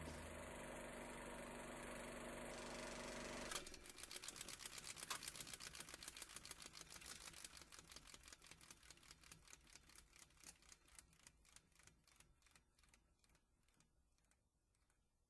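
Ending of a recorded song: a faint held chord, then about three and a half seconds in a fast run of clicks that gradually slows and fades away.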